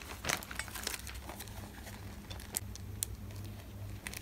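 Plastic packaging and sticker sheets crinkling and rustling as they are handled, with a few sharp ticks, over a low steady hum.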